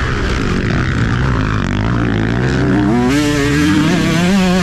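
Two-stroke motocross bike engine under race riding, heard from the rider's helmet. It runs at lower revs for about two seconds, then revs up sharply and holds high revs with small rises and dips near the end.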